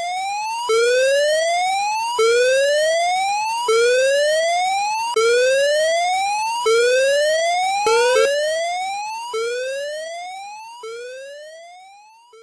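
Alarm siren whooping: a pitch sweeps upward, then drops back and sweeps up again about every one and a half seconds. The sound fades away over the last few sweeps.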